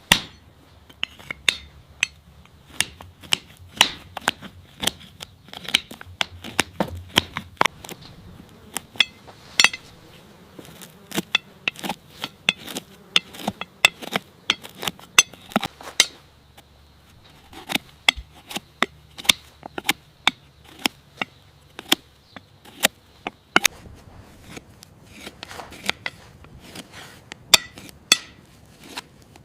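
Farrier's tools, a hoof knife and pick, scraping and clicking against a horse's hoof in quick, irregular strokes while the infected hoof is cleaned out and trimmed.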